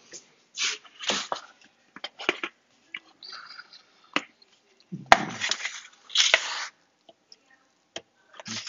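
A fork clicking and scraping against a ceramic plate and pie dish while serving and eating pot pie: a scattered series of short clicks, with a few brief scrapes just past the middle.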